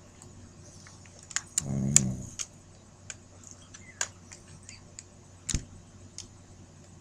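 Sleeping Shih Tzu puppy giving one short snoring growl about two seconds in, with light scattered clicks and ticks around it.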